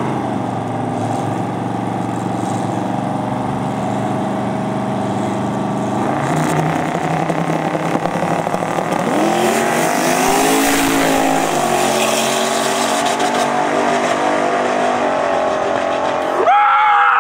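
Two drag-race cars, one a twin-turbo Pontiac Trans Am, run at the start line with their engines held steady, then rev and launch about ten seconds in with a loud rush, and run off down the strip. A louder engine sound rises suddenly near the end.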